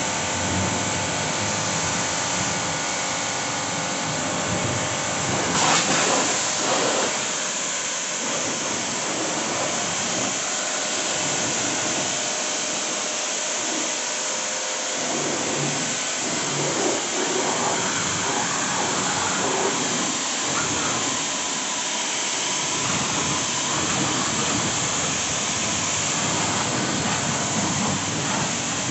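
STARQ AWP 2.4 2400 W electric pressure washer running, its high-pressure water jet hissing as it sprays against a car's body, windows and wheel, with a steady motor hum under the spray. The spray gets briefly louder about six seconds in.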